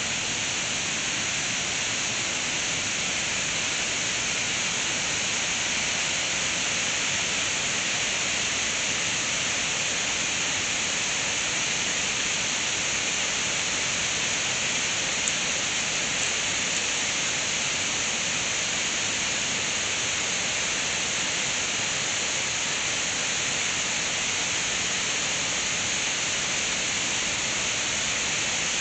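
Waterfall and rapids of the Hérisson river: a steady, even rush of falling and tumbling water.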